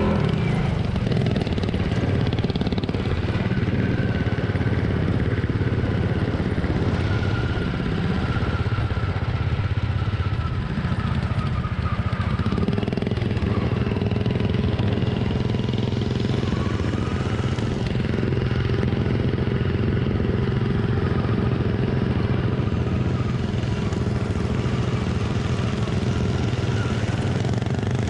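Single-cylinder racing lawn tractor engines running hard and steadily, the pitch shifting now and then as they are throttled through the laps.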